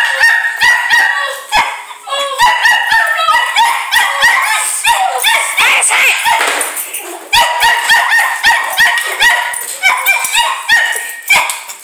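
A dog barking over and over in quick, high-pitched yaps, several a second, with short pauses about two seconds in and about seven seconds in.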